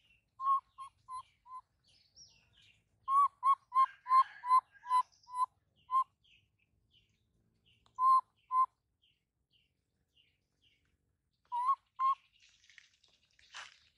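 Short, clear chirping calls at one steady pitch, about three a second, coming in bursts: four, then a longer run of about nine, then two pairs later on.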